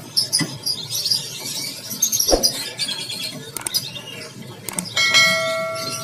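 Many caged small songbirds chirping and twittering. About five seconds in, a bell-like chime rings for about a second: the sound effect of a subscribe-button animation.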